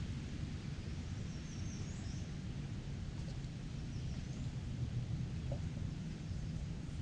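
A small bird singing short, high chirping phrases about a second in and again around four seconds, over a steady low rumble of outdoor ambience.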